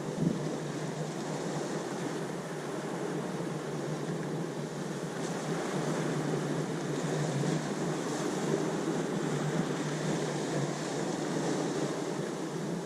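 Ocean waves washing in as a steady rushing surf, with a brief thump just after the start.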